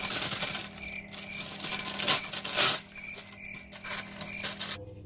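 Baking paper crinkling and rustling in irregular bursts as it is handled and pressed into a metal baking tray, with the loudest crackles a little past two seconds in; it stops near the end.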